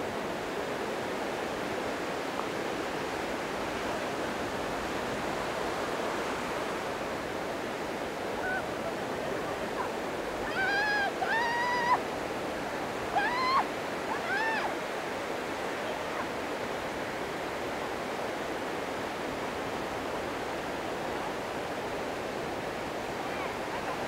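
Small wind-driven waves washing steadily onto the shore at the water's edge. Around the middle, about five short high-pitched cries that rise and fall come in quick succession over a few seconds.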